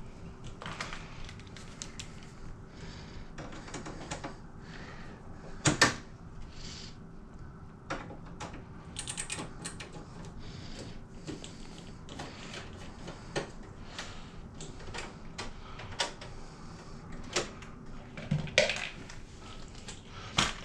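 Scattered small clicks, taps and knocks of screws being handled and a hard drive bay being worked inside a desktop computer case. A sharper knock comes about six seconds in, over a faint steady hum.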